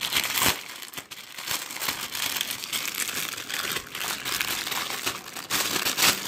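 Packaging crinkling and rustling as it is handled, with many small crackles throughout.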